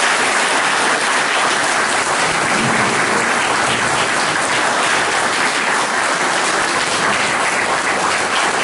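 A roomful of people applauding: steady, dense clapping.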